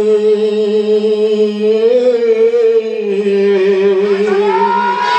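A man chanting one long held devotional note, "Hari", over a steady drone, the pitch wavering in the middle; near the end a higher voice line sweeps up and back down.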